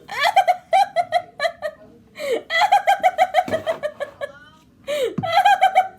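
A girl laughing hard in three bouts of quick, high-pitched ha-ha pulses, with short falling squeals between the bouts.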